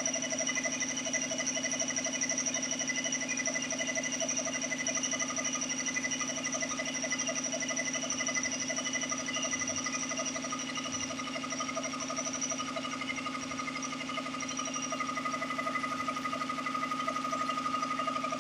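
5 hp belt-driven air compressor running steadily, with a fast, even pulsing from the pump.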